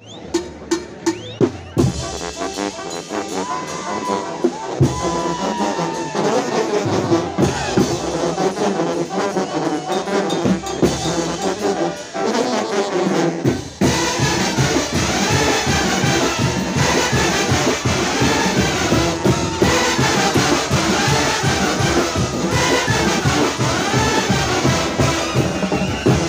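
Massed Oaxacan brass bands playing loudly: trumpets, trombones, clarinets and saxophones over sousaphones and drums. A few sharp strikes stand out in the first two seconds, and about halfway through the music changes abruptly to a livelier piece driven by a fast, steady drum beat.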